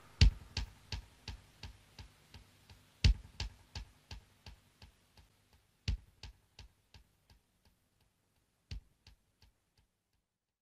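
A song's outro: a single sharp percussion hit about every three seconds, four times. Each hit trails a run of fading echoes, about three a second, that die away near the end.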